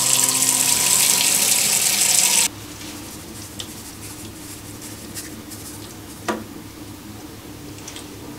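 Kitchen tap running a stream of hot water into a plastic basin in a stainless steel sink, shut off suddenly about two and a half seconds in. After that, quiet handling with a few faint clicks and one sharper tap.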